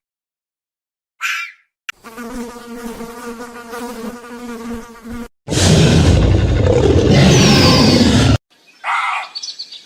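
An insect's wing buzz, steady in pitch, lasting about three seconds. It comes after a brief call and is followed by a much louder rushing noise of about three seconds, then short repeated calls near the end.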